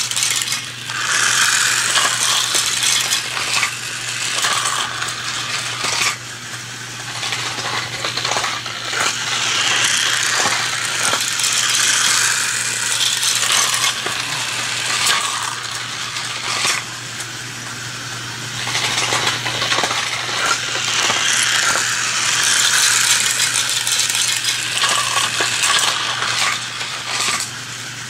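Battery-powered Magic Tracks toy car running on snap-together plastic track, its wheels clattering and clicking over the track joints. The clatter swells and fades as the car goes round the loop and passes under the 3D-printed coin blocks, which knock the coins up.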